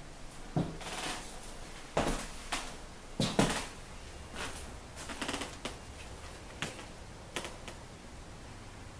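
A string of irregular clicks and knocks in an empty room, loudest about two and three and a half seconds in, over a faint steady hiss.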